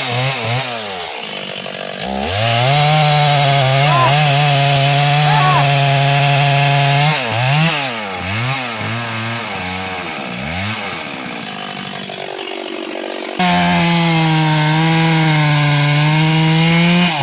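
Stihl MS 381 two-stroke chainsaw cutting sengon jowo wood. It is held at steady full throttle for about five seconds, then revved up and down in quick blips and dropped to idle, before jumping abruptly back to full throttle for another cut near the end.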